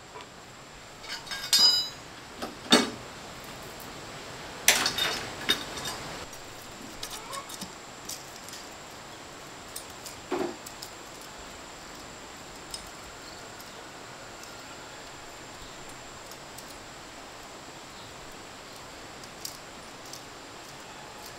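A few light metallic clinks and knocks, some with a brief ringing tone, bunched in the first six seconds or so and once more about ten seconds in, over a steady faint hiss.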